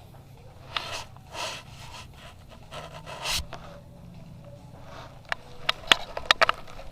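Breathing and gear rustling, then a quick string of about six sharp cracks of airsoft gunfire, the loudest sounds, starting about five seconds in.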